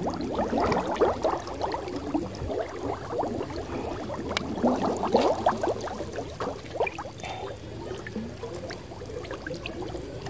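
Shallow river water sloshing and splashing around a person's legs as he wades, in a run of short, irregular splashes.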